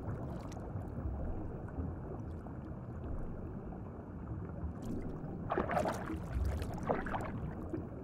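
Muffled underwater river sound: a steady low rush of flowing water, with a couple of louder gurgles a little past halfway.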